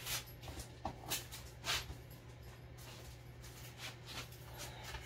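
Quiet room tone with a steady low hum and a few faint, brief knocks and rustles.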